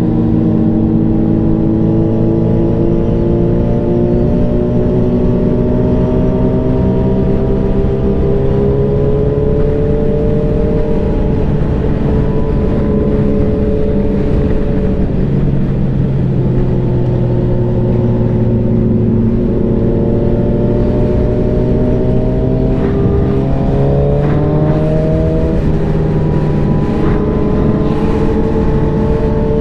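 Sport motorcycle's engine heard from the rider's seat over wind rush at highway speed, its pitch slowly climbing, falling back about halfway through, then climbing again with a quicker rise near the end.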